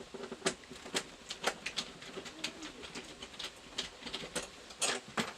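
A screwdriver backing a screw out of the trailer wall: an irregular run of sharp clicks and ticks, a few each second.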